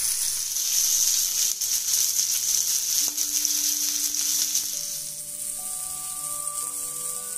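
Whole pomfret shallow-frying in hot oil on an iron tawa, the oil sizzling steadily before the sizzle dies down about five seconds in. Soft background music with held notes comes in about three seconds in.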